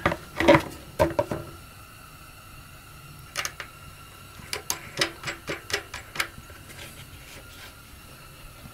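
Black plastic air cleaner cover of a Honda GX240 engine being fitted over the filter: a few hollow plastic knocks in the first second or so as it goes on, then a run of light clicks and taps a few seconds in as it is fastened down.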